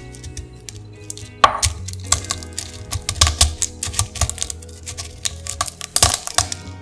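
Whole green cardamom pods cracking and crunching under a stone pestle in a stone mortar: irregular sharp cracks and taps, the loudest about a second and a half in and again near the end, over background music.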